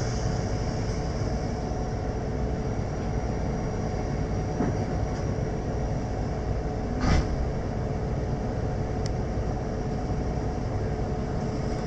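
Intercity coach bus engine running, heard from inside the front of the cabin: a steady low hum. A short burst of noise comes about seven seconds in.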